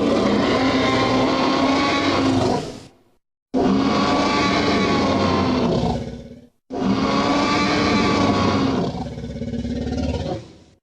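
Tyrannosaurus roar sound effect played three times in a row. Each roar starts suddenly, lasts about three seconds and then dies away, with a brief dead silence between roars. The third roar is longer and fades out slowly near the end.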